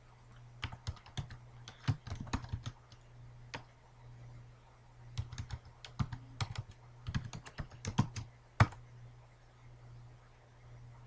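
Computer keyboard typing: two runs of quick keystrokes, the second ending in one louder key press, the Enter key that runs the command. A faint steady low hum lies under it.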